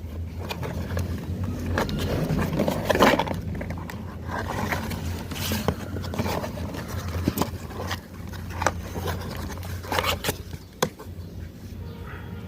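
Irregular scraping and knocking of things being handled, over a steady low hum.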